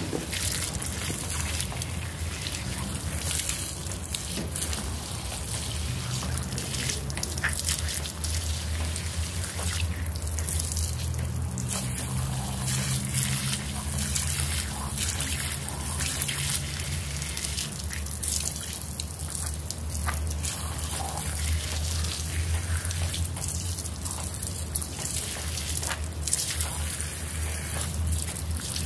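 A thin stream of water running onto a small carpet sample and trickling off across the wet floor, rinsing out soap, with a steady low hum underneath.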